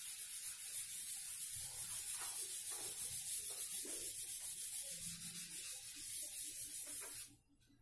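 Whiteboard eraser rubbing fast back and forth over a whiteboard, wiping off marker writing: a steady scrubbing hiss that stops abruptly near the end.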